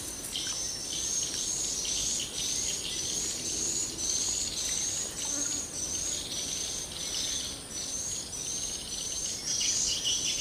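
Wild insects and birds calling: a short, high rising chirp repeats about twice a second over a steady high-pitched insect hum.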